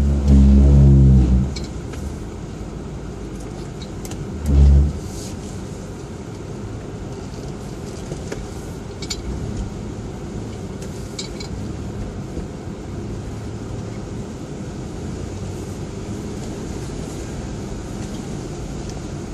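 An off-road 4x4's engine and drivetrain heard from inside the cab while it drives a rough dirt trail. There are two loud low surges, one right at the start and a shorter one about four and a half seconds in, then a steady running noise with a few light rattles.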